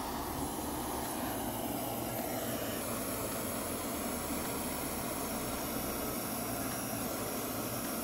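Handheld butane gas torch hissing steadily as its flame lights charcoal briquettes.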